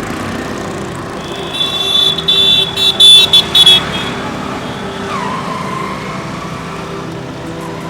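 Street traffic running steadily, with a high-pitched vehicle horn sounding in several short, loud blasts a couple of seconds in.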